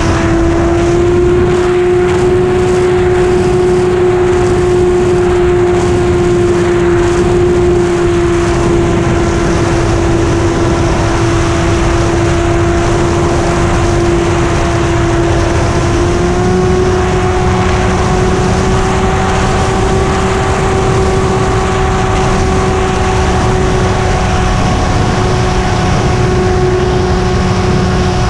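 Radio-controlled model airplane's engine and propeller droning steadily in flight, heard from a camera on board with wind rushing over the microphone; the pitch steps up slightly about 16 seconds in.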